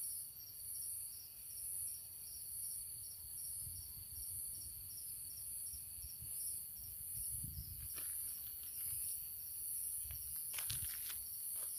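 Night insects chirping steadily, crickets among them: a very high chorus that swells and fades about once a second over a faster chirp about three times a second. Low rustling and a few short clicks near the end, like footsteps in the brush.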